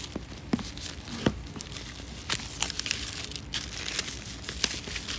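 Packaging of an Apple Magic Keyboard box being opened by hand: a pull tab is torn and paper and cardboard rustle, with scattered small clicks and crinkles.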